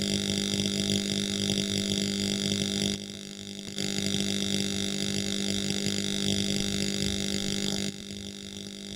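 Welding on iron: a steady buzzing hiss with a strong hum, which drops away for a moment about three seconds in and again near the end as the weld is paused.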